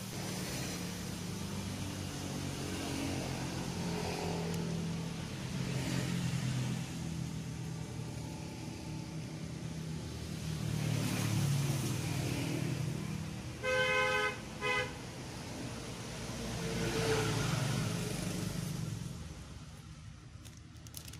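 Passing road traffic whose hum rises and falls as vehicles go by, with a vehicle horn honking twice in quick succession about fourteen seconds in.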